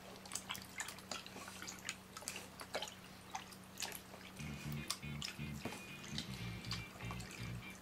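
Wet squelching and sticky clicking of hands kneading freshly mixed glue-and-borax slime in a plastic tub; the slime is still very wet, with a lot of loose liquid. Background music with a low beat comes in about halfway through.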